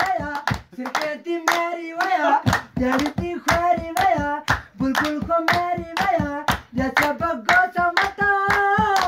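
A man singing a tappay folk song in long, wavering held notes over a fast, steady beat of hands drumming on a plastic container, with some hand clapping.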